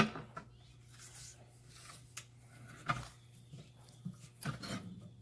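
Scattered light knocks, clicks and scrapes of hand tools and vice grips working a rear tractor tire's bead onto its steel rim, with quiet gaps between.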